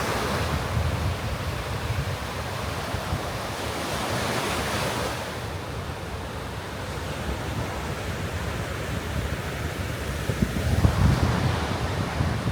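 Sea surf breaking and washing up the beach, with wind buffeting the microphone. The hiss of a wave's wash swells about four seconds in, and the wind gusts grow stronger near the end.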